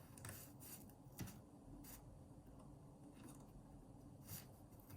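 Faint handling sounds of fabric loops being lifted off a weaving loom's pegs and pulled through one another: a few soft, scattered clicks and rubs.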